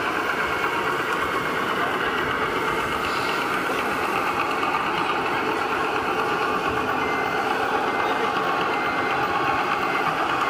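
Steady mechanical din of radio-controlled scale construction machines working a dirt layout in a busy hall. From about seven seconds a rapid high beeping, like a reversing alarm, repeats over it.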